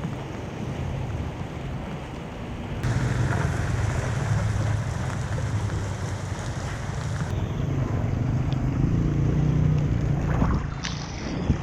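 Floodwater rushing and splashing as it drains away through a cleared street drain, with wind rumbling on the microphone. The water sounds brighter for a few seconds after about three seconds in, and there is a sharp knock near the end.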